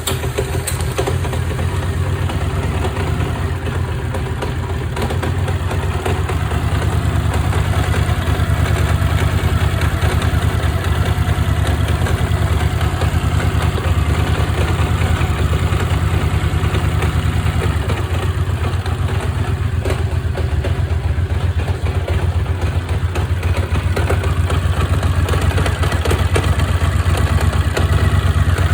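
Honda GL700 Interstate's V-twin engine idling steadily just after a start, carrying the abnormal noise it is recorded for. The owner later traced the noise to the three bolts holding the starter-clutch outer to the flywheel having all broken, which he believes let the clutch outer rub against the starter driven gear.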